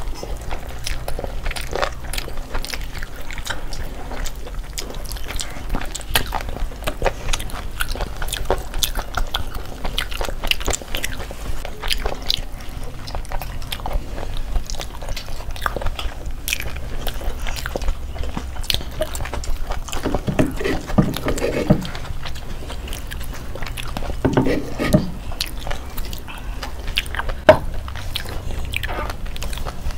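Close-up eating sounds of several people chewing and biting tandoori chicken lollipops and fried rice by hand, with frequent wet mouth clicks and smacks.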